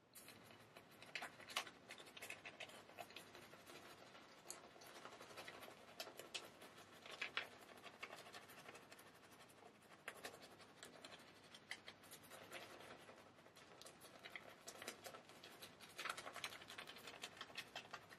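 Silvertip badger shaving brush scrubbing shaving-soap lather onto a stubbled face: a faint, continuous scratchy crackle of bristles and lather with many small clicks.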